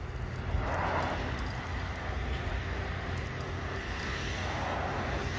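Road traffic passing, with one vehicle swelling past about a second in, over a steady low rumble of wind on the microphone.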